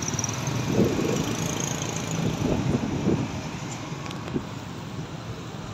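Road traffic, mostly motorcycles, running and passing, over a steady low road hum.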